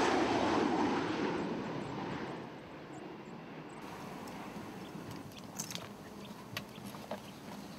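A jet airliner on approach with its landing gear down passes over, its engine noise fading away over the first two or three seconds. Then a quiet outdoor background with a few small clicks and rustles as the bags on a parked motorcycle are handled.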